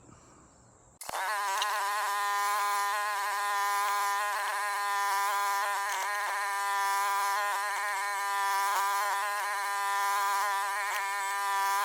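Mini excavator's small engine running steadily with a high buzzing drone while it works, cutting in abruptly about a second in.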